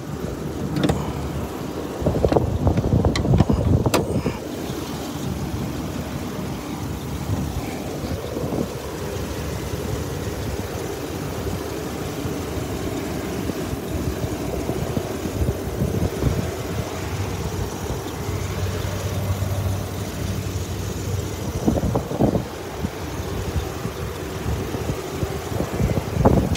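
Wind buffeting the phone's microphone in a steady rumble. There are a few knocks and clunks in the first four seconds as the pickup's hood is raised.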